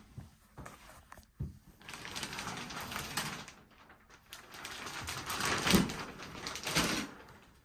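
Shower curtain being pulled open along its rod and then drawn back, its metal hooks rattling and scraping along the rod and the fabric rustling, in two long stretches with a sharp clack near the end.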